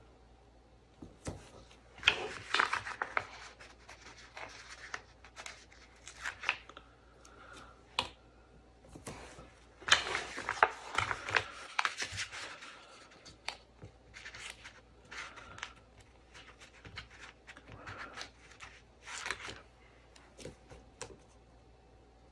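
Paper sticker sheet rustling as stickers are peeled off their backing and rubbed down onto paper planner pages with the fingers: irregular bursts of crinkling, peeling and scraping, loudest about two seconds in and again about ten seconds in.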